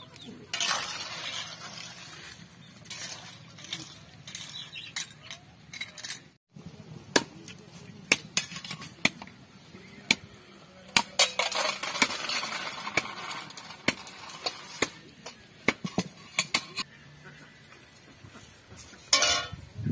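Small snails in their shells being stirred in a steel wok of boiling water with a metal spatula: repeated sharp clinks and scrapes of metal and shell over the hiss of the boil, which swells twice.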